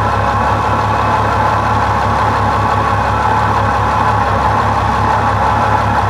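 Bentley engine idling smoothly and steadily.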